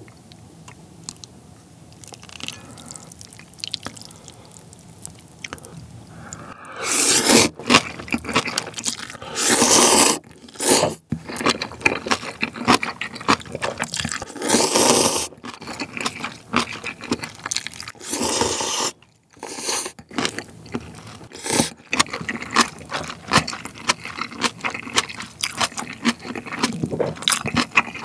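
Ramen noodles being slurped in several loud pulls of about a second each, the first about seven seconds in, with wet chewing and mouth clicks between them.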